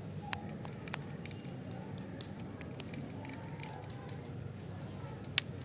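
Plastic lollipop wrapper handled by fingers, crinkling with scattered small clicks and one sharper click near the end.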